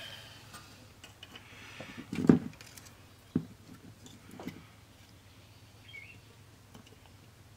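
Handling noise from a CD changer's laser pickup assembly being gripped and worked on: three short knocks of plastic parts, the loudest about two seconds in. A faint steady hum sits underneath.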